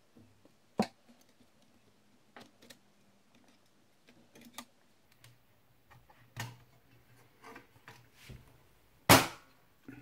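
Scattered sharp clicks and knocks of hard plastic and metal as a laptop's cooling fan is worked loose and lifted out of its bay, with the loudest knock near the end.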